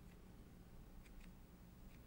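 Near silence: quiet room tone with four faint, short clicks from fingers pressing and shaping a soft ball of taro and glutinous-rice dough.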